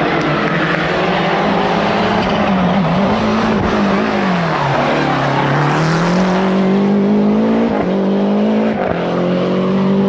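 Lancia Delta HF Integrale rally car's turbocharged four-cylinder engine driven hard. The revs drop twice as the driver lifts, then climb steadily, with short breaks at upshifts about eight and nine seconds in.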